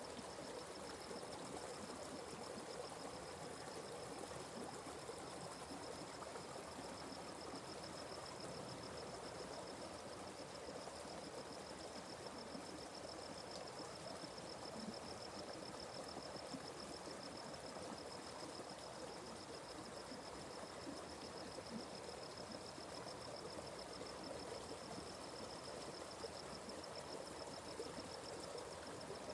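Atlantic Forest stream flowing steadily, with a steady high-pitched trill running above the water.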